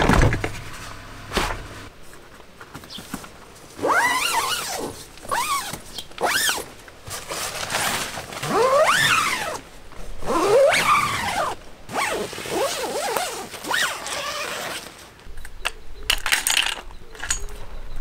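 A heavy thud as a portable fridge is set down in a car's boot, then a run of long zips on the Abenaki Evolution shelter tent's door zippers, about six pulls with a pitch that rises and falls along each one.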